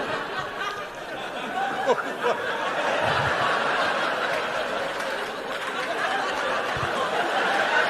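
Large live audience laughing, a sustained, dense wave of crowd laughter with a few individual voices standing out about two seconds in.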